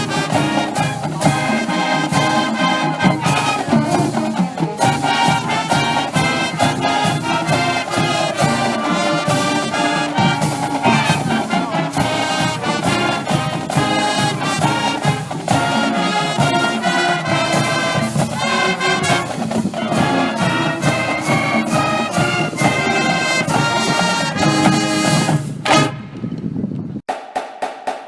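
Brass band music with trumpets, trombones and drums playing a lively tune. Near the end the band breaks off and a snare drum carries on alone with an even, repeating beat.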